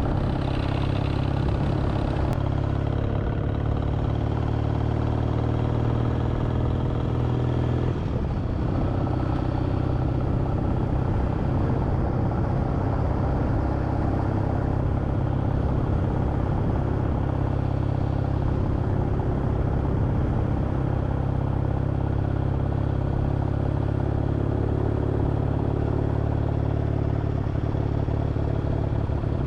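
Kawasaki W650's air-cooled parallel-twin engine running steadily under way, heard from on the bike, with its headlight shell and brackets taped to stop a metal-on-plastic rattle.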